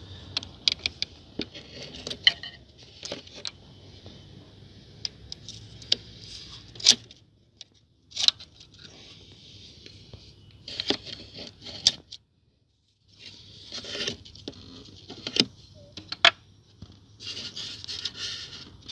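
Hands working a BMW E39 radiator hose connection and its wire retaining clip: scattered clicks and ticks of plastic and metal, with light scraping and rustling.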